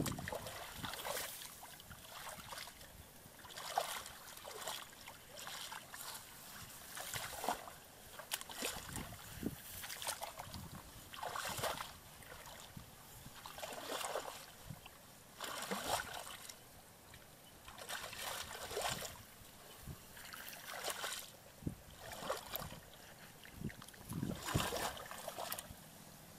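Shallow muddy water splashing and sloshing in irregular bursts every second or two, from a person wading through it and moving a plastic basin in the water.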